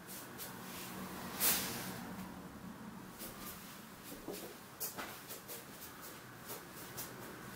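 Faint, irregular soft taps and rustles of bare feet and clothing as a person walks on foam floor mats, over a low steady hum and hiss; the clearest tap comes about a second and a half in.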